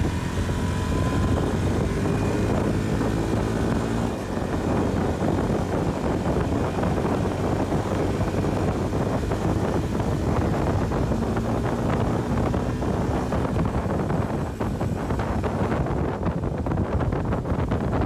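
Motorcycle engine running steadily while riding at road speed, mixed with wind rushing over the microphone.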